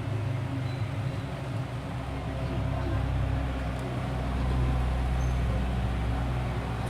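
A steady low mechanical hum, swelling slightly about four seconds in.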